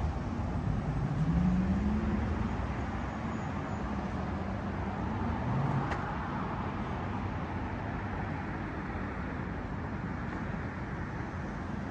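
Street traffic: a steady hum of passing cars, with a vehicle's engine tone rising in pitch about a second in.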